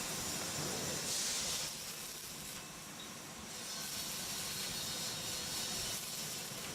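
Electric arc welding: the arc gives a steady hiss, with a brief louder burst of high hiss about a second in.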